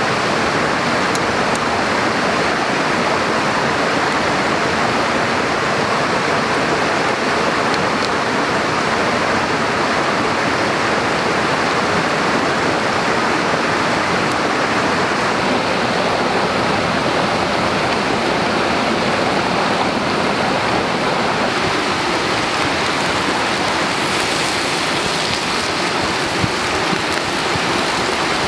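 Steady rushing water, running evenly throughout with no pauses.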